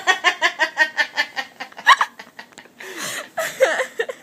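A woman laughing hard in a rapid run of short, high-pitched bursts, about six a second, then a few breathy laughs near the end.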